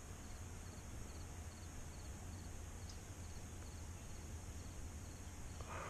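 Swamp ambience: insects chirping in a steady, evenly repeated pulse over a constant high buzz, with a low rumble underneath.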